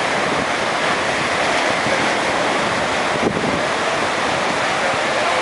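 Steady wash of sea surf and wind noise on the microphone, with a brief click about three seconds in.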